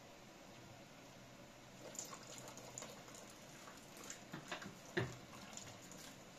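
A thin stream of liquid trickling from a small ceramic teapot into a pot of milky rice. A few light clicks sound from about two seconds in, and one sharper knock comes about five seconds in.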